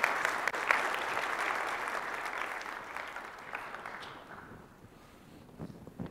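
Audience applauding, loudest at the start and dying away about four seconds in.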